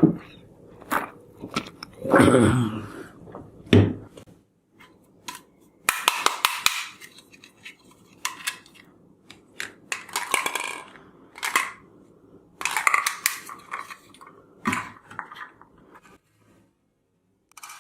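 Hard plastic toy guns handled and clicked, giving irregular bursts of clattering and sharp clicks.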